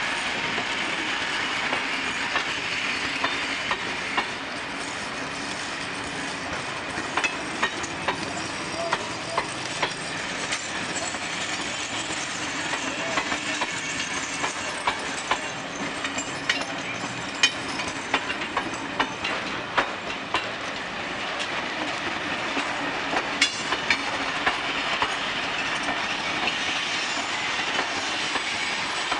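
Vintage passenger carriages rolling past close by, a steady rumble of wheels on rail broken by irregular sharp clicks as the wheels pass over rail joints.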